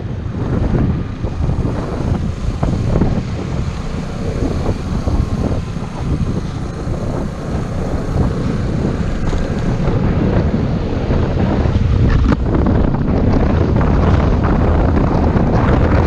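Wind buffeting the microphone of a camera on a moving Vespa Sprint scooter: a steady low rush that grows a little louder in the second half, with the scooter's vehicle noise underneath.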